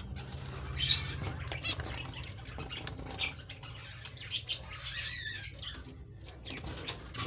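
Finches in an aviary cage fluttering their wings and giving short high chirps, scattered through, over a steady low hum.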